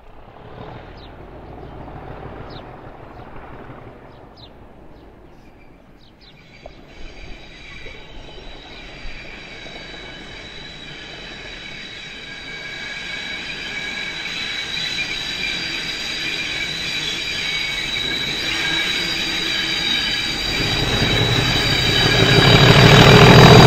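Train approaching along the track. Several high, steady ringing tones from the wheels and rails swell over about fifteen seconds, and the heavy rumble of the train arriving comes in near the end.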